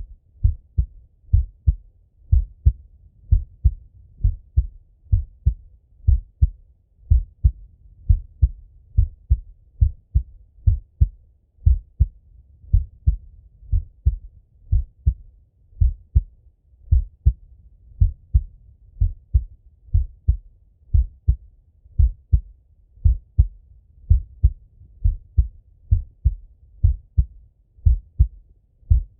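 A man's heartbeat heard through a Littmann stethoscope on his own chest: a steady, even run of paired lub-dub thumps, deep and dull.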